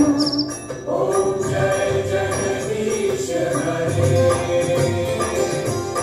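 Hindu devotional music for a Diwali puja: voices singing a hymn in long held notes over steady jingling percussion.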